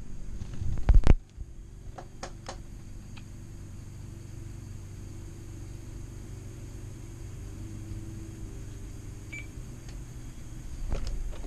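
Handling noise from an FrSky Taranis X7 radio transmitter being picked up and turned over: a loud cluster of knocks about a second in and a few sharp clicks soon after, over a steady low electrical hum.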